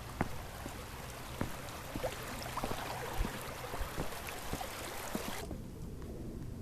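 Outdoor wind rushing over the microphone, a steady noise with scattered light clicks; the hiss cuts off abruptly about five and a half seconds in.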